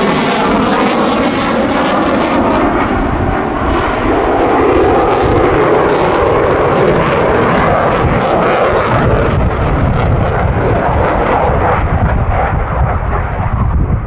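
Eurofighter Typhoon's twin Eurojet EJ200 jet engines, loud and continuous as the fighter passes, with a slowly sweeping, phasing tone as it moves across; the noise eases slightly near the end.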